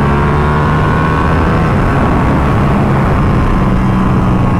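Ducati Panigale 1299S L-twin engine running at steady revs while riding at speed, with wind rushing over the microphone.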